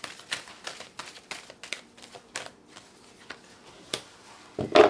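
A tarot deck being hand-shuffled: a quick run of crisp card clicks, about three a second, thinning out after a couple of seconds. A louder knock near the end as a card is set down on the table.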